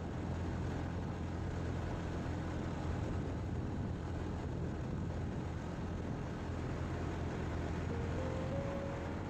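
Motorcycle running steadily on the road, a constant low engine hum under road noise. Near the end a short faint tone steps up in pitch.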